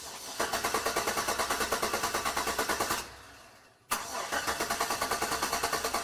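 Car engine being cranked by the starter motor without catching: an even, rapid chugging of about six or seven beats a second. It stops about three seconds in and winds down, then a click sets off a second crank about a second later. The engine turning over like this shows that the ignition switch is sending power to the starter.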